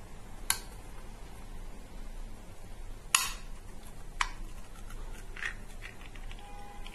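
Ring-pull lid of a small metal cat food tin being levered open with a fingertip: a few sharp metallic clicks, the loudest about three seconds in, with fainter ones after.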